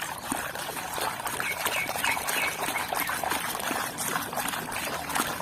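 Water pouring and trickling over a mud-covered toy as it is rinsed clean, a steady splashing patter with small drips and ticks.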